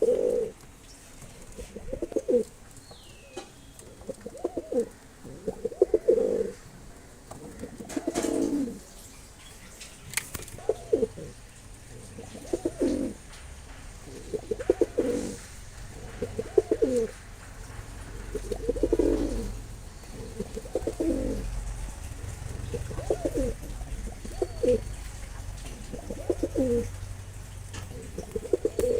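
Mosaldom fancy pigeon cooing, a low coo repeated about every two seconds.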